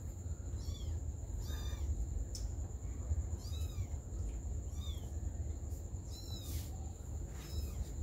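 Young kitten mewing: about seven short, high-pitched cries that rise and fall, repeated every second or so.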